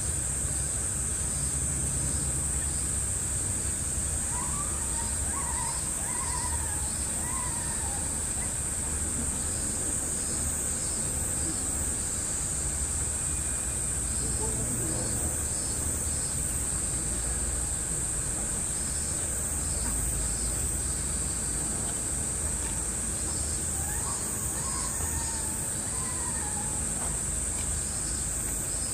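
Summer cicadas droning steadily in a high, shrill hiss, with a pulsing insect call recurring over it every few seconds and a low outdoor rumble underneath.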